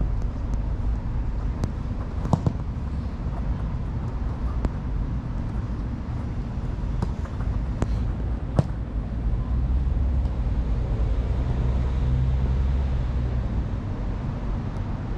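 A few sharp thuds of a futsal ball being kicked on artificial turf, the loudest about two and a half and eight and a half seconds in, over a steady low rumble.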